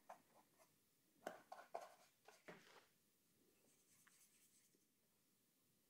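Faint scratchy strokes of a paintbrush on canvas, a few short ones between one and three seconds in, with near silence either side.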